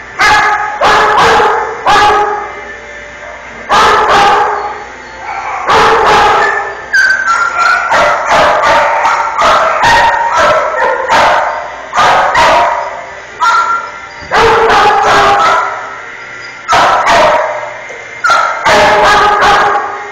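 Dogs barking repeatedly in clusters of loud, sharp barks, each ringing on briefly in an echoing room.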